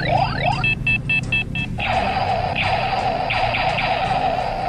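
Battery-powered 'Funny Gear' toy gear gun playing its electronic sound effects: a quick string of falling 'pew' laser sweeps, then about five short high beeps around a second in, then a steady pulsing electronic tone from about two seconds in.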